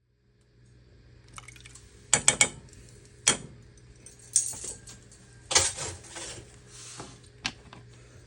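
Metal kitchen utensils clinking and clattering: a series of sharp clinks starting about two seconds in, with the loudest clusters around two seconds and again near six seconds.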